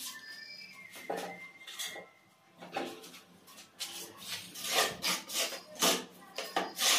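Cement mortar being scooped and scraped in a bucket, a series of short rough scraping strokes that grow louder toward the end.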